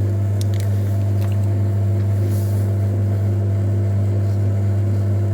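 Metal lathe running steadily, a constant low hum. A couple of light clicks come in the first second or so, and a brief hiss about halfway through.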